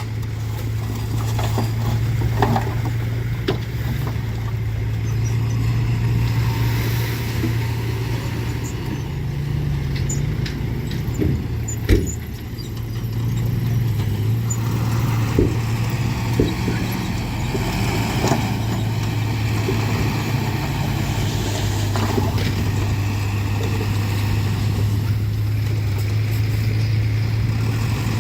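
Diesel engine of heavy construction machinery running steadily with a low, even drone, and a few sharp clanks scattered through, the loudest about twelve seconds in.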